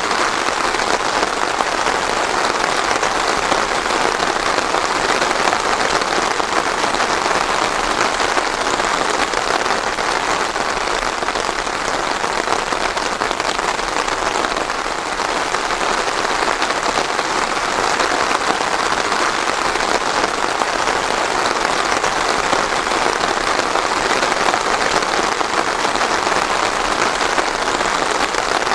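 Steady rain falling, a dense even patter of drops without thunder.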